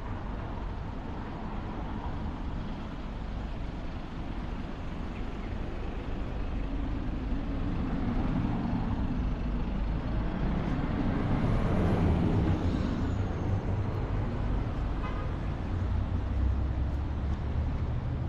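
Street traffic noise with a double-decker bus passing close by, its engine building to the loudest point about twelve seconds in over a steady low rumble.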